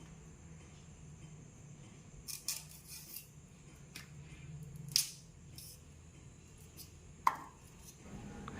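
A blade cutting through thick, fibrous ghatkol stalks: several sharp, faint cuts and snaps spread unevenly, the clearest about five seconds in and just after seven seconds.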